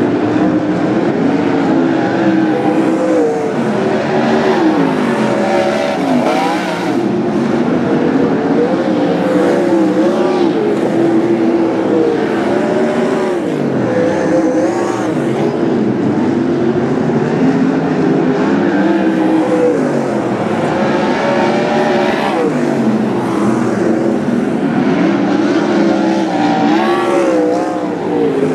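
Several winged sprint cars racing, their V8 engines overlapping as they open up down the straights and ease off into the turns, with the pitch rising and falling again and again.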